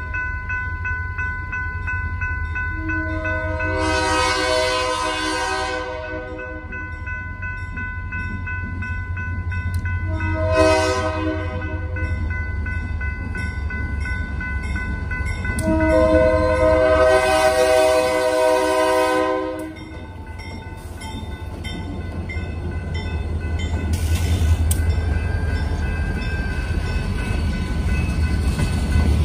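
Diesel freight locomotive's multi-chime air horn sounding the grade-crossing signal: a long blast, a short one, then a final long blast, over a steady ringing crossing bell. After the last blast the locomotive and its freight cars rumble across the crossing, the rumble and wheel clatter growing near the end.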